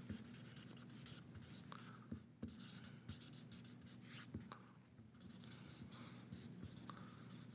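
Marker pen scratching on paper as Chinese characters are written stroke by stroke. The strokes are faint and short, with brief pauses and a few light ticks of the pen tip between them.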